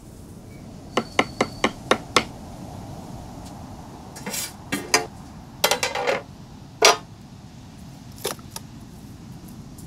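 Wooden spatula tapping several times in quick succession against a metal cooking pot, then a metal lid clanking and ringing as it is set on the pot.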